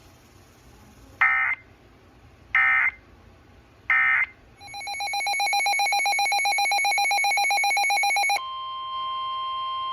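Emergency Alert System activation: three short bursts of SAME header data tones, then an electronic attention tone that pulses rapidly and switches near the end to a steady tone.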